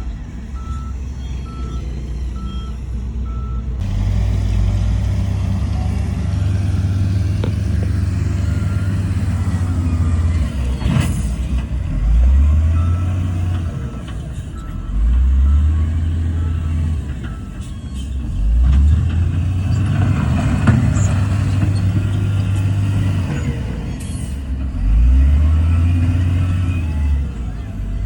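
Heavy diesel engines of a bulldozer and dump truck working, the engine revving up under load several times. A reversing beeper sounds in short repeated beeps near the start and again around the middle, and there is one sharp clank partway through.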